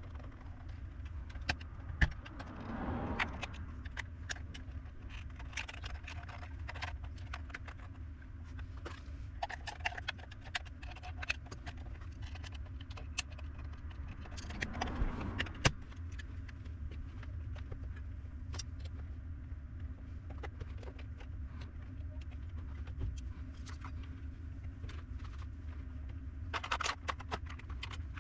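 Many small clicks and taps of tools and parts being handled on a workbench during a battery-pack repair, with a louder clatter about three seconds in and again about fifteen seconds in, over a steady low hum.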